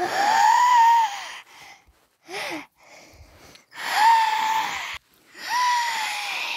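High-pitched, breathy vocal squeals, three long ones each rising and then falling in pitch, with a shorter, lower wavering squeak between the first and second.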